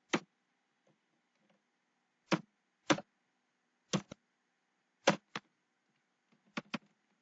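Computer keyboard keys clicking in slow, single keystrokes. There are about nine short, sharp clicks a second or so apart, several in quick pairs.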